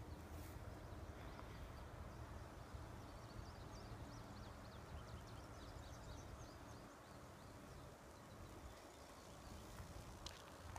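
Quiet open-air ambience: a low, uneven rumble with faint, quick high bird chirps through the middle few seconds, and a single sharp click near the end.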